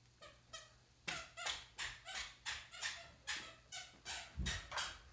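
A toddler's squeaky shoes squeaking with every step as she walks, about three squeaks a second.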